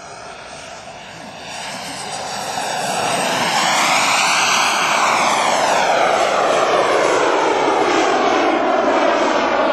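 Radio-controlled Scorpion model jet flying past: its rushing engine noise swells over the first four seconds and stays loud, with a sweep in its tone around the middle as it passes close.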